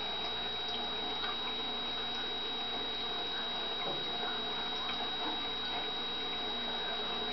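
Steady background hiss with a thin high-pitched whine, and a few faint soft ticks scattered through.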